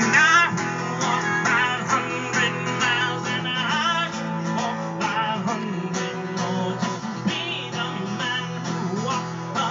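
Live acoustic guitar strummed in a steady rhythm, with a voice singing over it.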